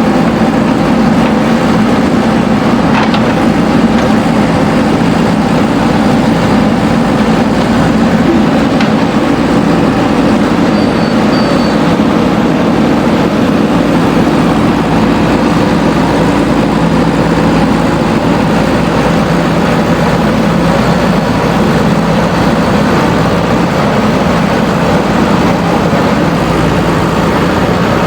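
JCB backhoe loader's diesel engine running steadily under work, with a few faint clicks.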